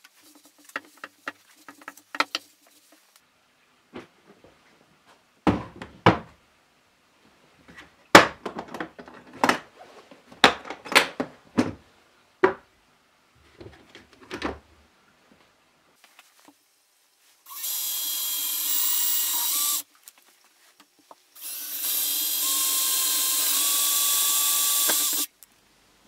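A DeWalt cordless drill is taken out of its hard plastic case with a series of knocks and clatters. It then runs twice near the end, first for about two seconds and then for about four seconds, with a steady high motor whine.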